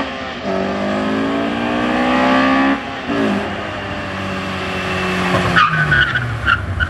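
Honda Accord Euro four-cylinder with aftermarket headers and catback exhaust accelerating hard, with the revs breaking off twice for upshifts. About five and a half seconds in the car makes a full emergency stop: the tyres chirp in quick pulses as the ABS cycles, while the engine note falls.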